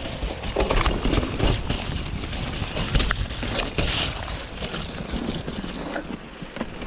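Wind buffeting a chest-mounted camera's microphone as the rider moves fast, with a steady rumble and many quick rattles and knocks from the ride over rough ground.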